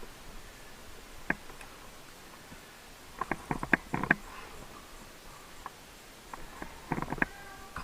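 Airsoft guns firing: a single sharp crack, then two quick bursts of several shots, one about three seconds in and another near the end.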